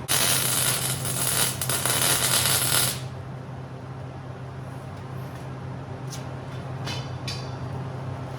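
A metalworking power tool running on steel for about three seconds, giving a loud harsh hiss that starts and stops abruptly, over a steady low hum. A few faint short clicks follow near the end.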